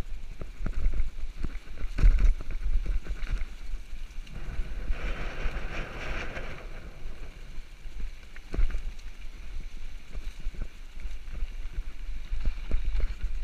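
Mountain bike rolling fast down a dry dirt trail: frequent knocks and rattles as it goes over bumps, with low wind rumble on the microphone and a brief hiss around the middle.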